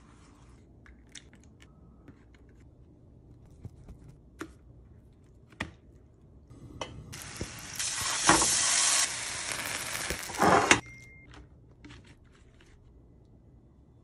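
A slab of watermelon sizzling in a hot frying pan, a hiss that rises about seven seconds in and stops near the eleven-second mark. A few light taps and clicks of handling come before it.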